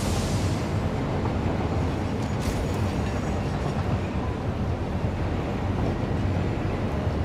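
Steady low rumbling noise of a moving vehicle, with a sharp click at the start and another about two and a half seconds in.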